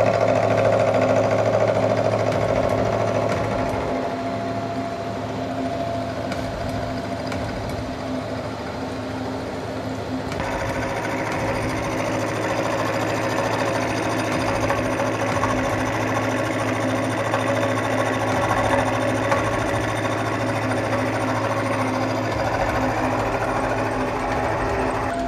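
Milling machine cutting a block of D6 tool steel: the spindle's steady hum under the chatter of the cutter in the steel. The sound changes abruptly about ten seconds in.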